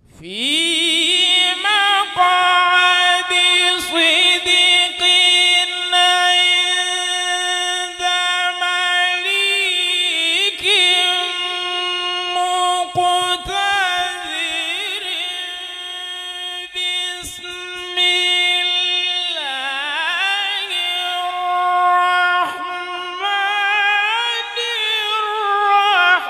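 Male qari reciting the Quran in melodic tajweed style, unaccompanied: long held notes with ornamented turns. The voice starts suddenly, pauses briefly for breath a few times, and dips lower about three-quarters through before climbing back up.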